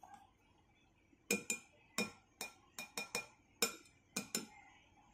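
Metal spoon clinking against a bowl of besan batter, about eleven quick, irregular strikes over some three seconds.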